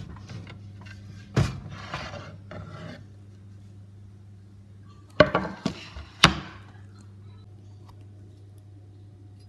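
Kitchen things being handled on a wooden worktop: a sharp knock about a second and a half in followed by a scraping rustle, then a quick cluster of sharp knocks a few seconds later, the last one the loudest. A low steady hum runs underneath.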